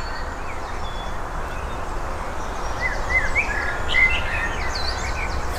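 Small birds chirping in short, quick calls, busiest about three to four and a half seconds in, over a steady background hiss and low rumble.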